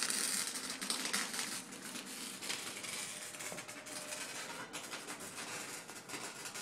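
Electric welding arc crackling and sputtering with a dense hiss, gradually getting quieter.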